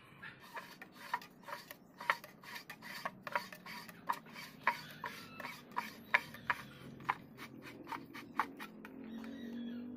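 A horn being screwed by hand onto a compression driver's threaded throat: a string of irregular light clicks with rubbing as the threads turn.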